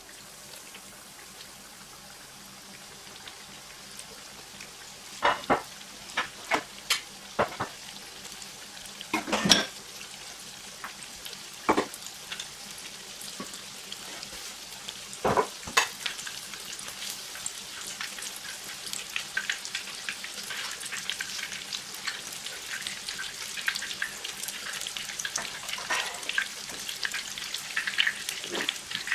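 Breaded pork cutlet shallow-frying in hot oil in a nonstick pan: a steady sizzle that builds and grows denser throughout. A handful of loud, sharp snaps come in the first half.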